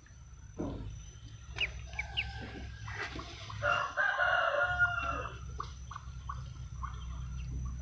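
A rooster crows once, about three and a half seconds in, a single call of about a second and a half. Around it come short, high peeps from newly hatched ducklings.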